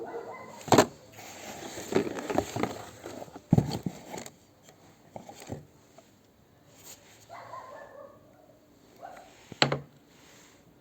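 Knife packaging being handled and opened: rustling with a series of sharp clicks and knocks, busiest in the first few seconds, and one sharp click near the end.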